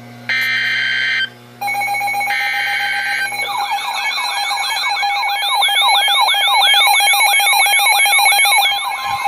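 Emergency Alert System warning on NOAA Weather Radio: the last two of the three short, raspy SAME digital header bursts, about a second each, then a loud steady alert tone that from about three and a half seconds in is joined by a fast, repeating rising-and-falling siren-like warble.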